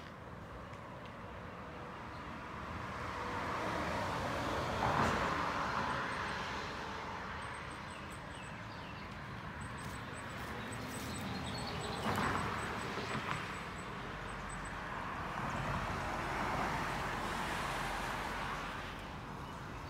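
Street traffic: three vehicles pass one after another, each a swell of tyre and engine noise that rises and falls away, about five, twelve and seventeen seconds in. Faint, quick, high chirps come between the first two.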